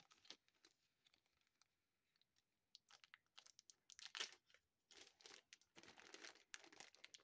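Faint crinkling of a thin clear plastic bag being handled, in short, scattered crackles from about three seconds in; near silent before that.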